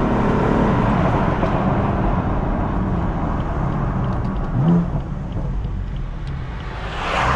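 BMW F82 M4's Stage 1 tuned twin-turbo straight-six driving under steady throttle, its exhaust running in a low, even drone. About four and a half seconds in the pitch briefly sweeps up, and near the end a louder rush of noise swells up and falls away.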